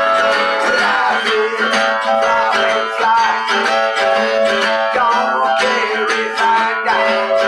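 Harmonica playing a blues line with notes that bend in pitch, over strummed acoustic guitar.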